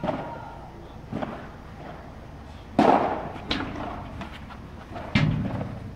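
Padel ball hits during a rally: the ball is struck by rackets and rebounds off the court's glass walls. There are five sharp hits at uneven intervals, the loudest about three seconds in, and a duller thump about five seconds in.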